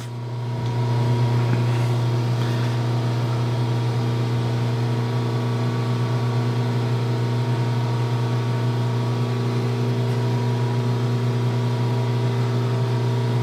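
1950 Hardinge HLV lathe running, its motor coming up within the first second to a steady, even hum as the carriage travels along the bed.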